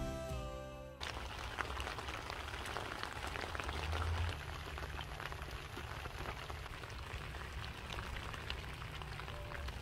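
Steady rain falling, a dense haze of small drop impacts ticking and pattering, with a low rumble underneath. It starts when the music cuts off about a second in.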